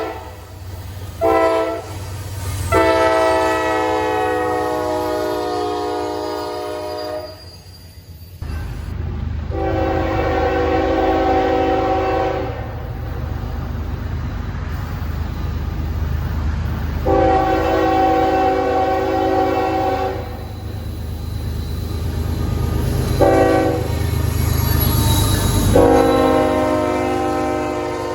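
Diesel locomotive air horn sounding in a chord. First a short blast and a long blast, then after a break a new passage of long, long, short, long: the standard grade-crossing warning. From about eight seconds in, the low rumble of the passing train runs under the horn.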